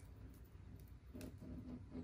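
Faint handling sounds of a hair straightener's rubber-coated power cord being unwound: soft rustles and a light click a little over a second in.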